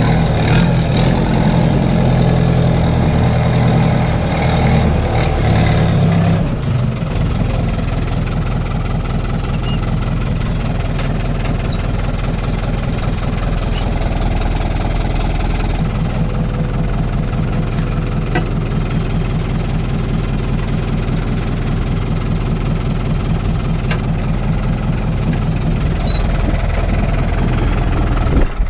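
Fiat 70-66 tractor's four-cylinder diesel engine running, heard from inside the cab. About six seconds in its note drops and quietens, then it runs on steadily with an even low throb.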